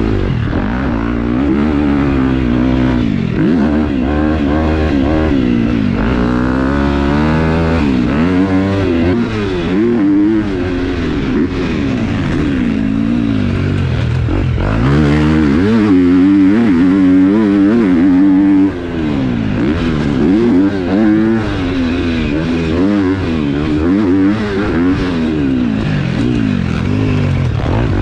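KTM 250 SX-F motocross bike with a Yoshimura exhaust and aftermarket ECU tune, ridden hard: the engine pitch climbs and drops again and again as the throttle is opened and chopped through corners and gear changes.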